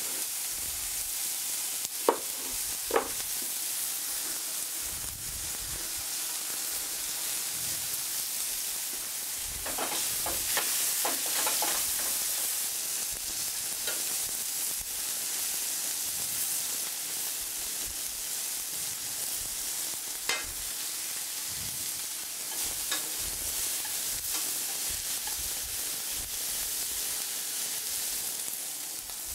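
Turbot with lemon slices and garlic frying in a pan, a steady sizzle. A few sharp clicks of metal utensils against the pan, the loudest about two and three seconds in and again near twenty seconds.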